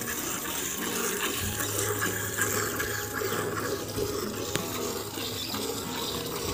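Milk squirting into a steel bucket as a cow is milked by hand, a steady hissing splash.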